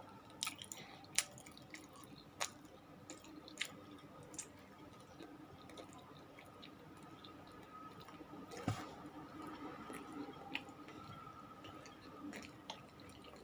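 A person chewing food close to the microphone, with scattered sharp clicks and smacks of the mouth, over a faint steady hum.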